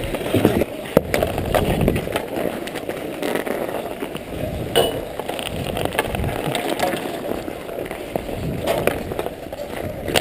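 Ice skate blades scraping and carving over rough outdoor rink ice, with sharp clicks from a hockey stick handling a puck.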